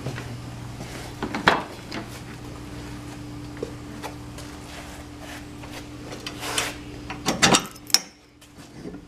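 Several knocks and clatters, the loudest about one and a half seconds in and again near seven and a half seconds, over a steady low hum that drops away about eight seconds in.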